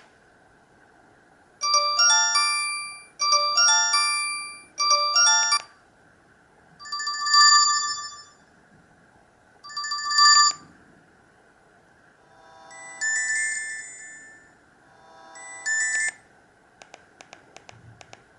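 Alcatel OT-117 mobile phone playing its built-in ringtones, one short tune after another: the same quick rising run of notes three times, then several other brief melodies, each lasting one to two seconds with pauses between. Near the end, a run of quick clicks.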